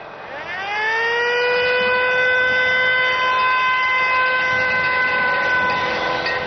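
Siren on a small novelty fire engine, rising in pitch over about a second and then holding one steady wail.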